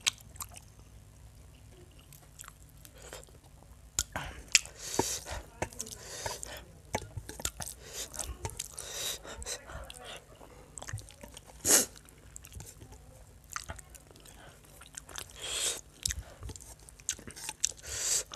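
Close-up chewing of chicken curry and rice eaten by hand: irregular wet mouth clicks and smacks, with the fingers working the rice in the gravy on the plate. The sharpest click comes about twelve seconds in.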